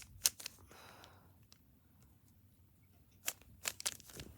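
Plastic Rubik's cube layers clicking as they are turned by hand: a few sharp clicks, a pause of nearly two seconds, then a few more clicks. The cube is cheap and stiff to turn.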